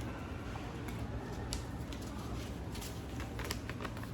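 A sheet of origami paper being folded and creased by hand: soft rustling with several short crackles, most of them bunched in the second half, over a steady low hum.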